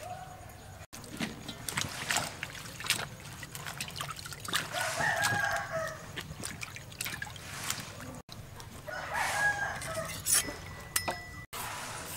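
A rooster crowing twice, about four and nine seconds in, over water splashing and trickling as spring onions are rubbed clean by hand in a steel bowl of water.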